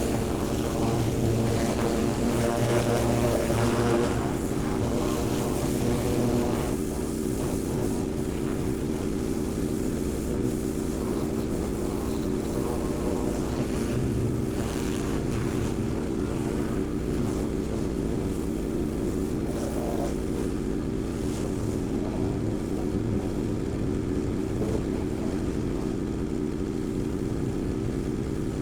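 Magnum 4000 Gold hot water pressure washer running steadily, a little louder for the first six seconds or so and then level.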